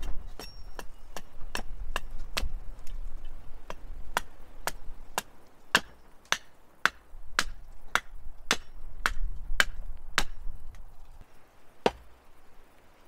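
Stihl hatchet, its edge freshly reground to a 28-degree Scandi grind, carving down a billet of cherry wood on a chopping block: short, sharp chops about two a second. They stop a little after ten seconds, and one last blow falls near the end.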